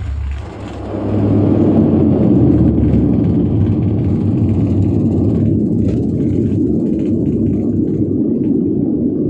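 Passenger aircraft on its landing roll, heard from inside the cabin. About a second in, the engine noise rises sharply to a steady, loud rumble, typical of reverse thrust braking after touchdown.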